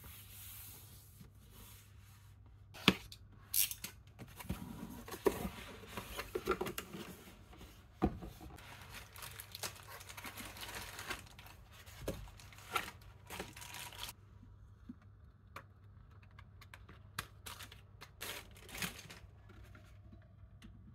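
Unboxing handling noise: a cardboard box and its packaging being opened and pulled apart, with rustling, crinkling and tearing sounds and sharp clicks and knocks. It quiets down about two-thirds of the way through, leaving a few scattered taps and clicks as the unit is handled.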